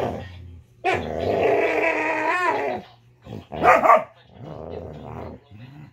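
Two dogs play-fighting: drawn-out growls with a wavering pitch and a sharp bark about three and a half seconds in, followed by a lower, quieter growl.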